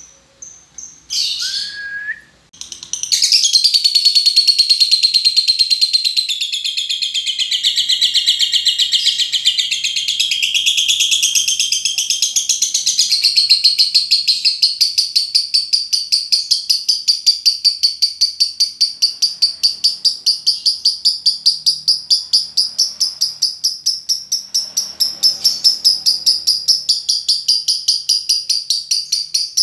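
Lovebird 'ngekek' song: a few short chirps, then from about three seconds in one long, unbroken, high-pitched chattering trill that pulses rapidly several times a second without a pause.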